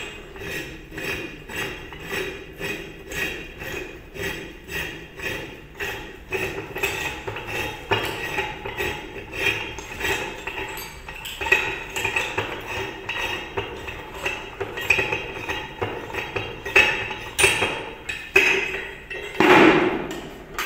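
Metal clinking and clicking in a steady rhythm, about two a second, as the bonnet of a fire-hydrant landing valve is turned off its threads by hand. Near the end there is one louder metal knock as the parts are lifted out and set down.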